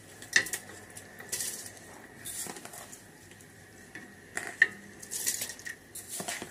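Metal pot and utensils clinking and knocking in short, irregular strikes, with brief splashy rustles as rice is handled in a pot of water.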